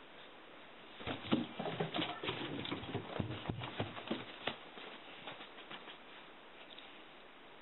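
Quick, irregular pattering and scrabbling of running feet on a hard floor. It starts about a second in, is densest for the next few seconds, then thins out and fades.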